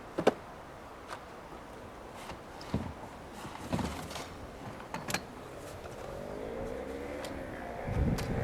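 A few short knocks and clunks, then a vehicle engine getting louder and rising in pitch near the end.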